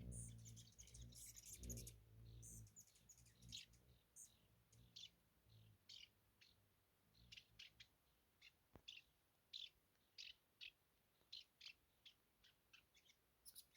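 Faint small-bird chirps: short high notes repeating one to a few times a second. A low rumble runs under them in the first couple of seconds.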